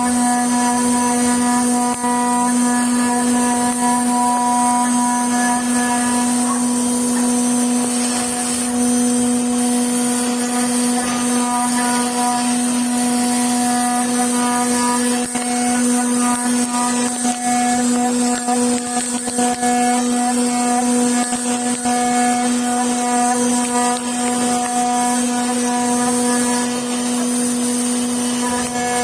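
Machining equipment running with a steady electric hum and a constant high hiss, unchanging throughout.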